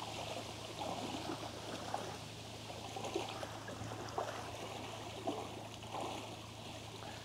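Running water trickling steadily, with small irregular clicks and a steady low hum underneath.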